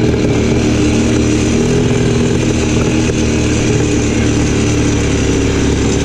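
ATV engine running at a steady, even level while the quad is ridden along a dirt track.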